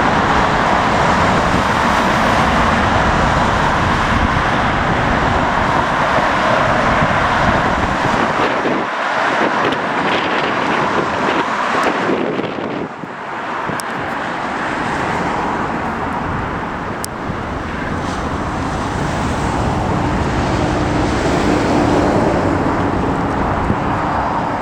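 Strong wind buffeting the microphone over the steady noise of airliner jet engines, with a faint engine whine early on. The rumble dips briefly twice near the middle as the gusts ease.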